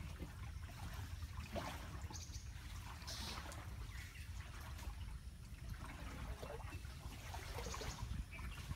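Water trickling and lapping around a small wooden boat as it is paddled slowly along a canal, with scattered small splashes.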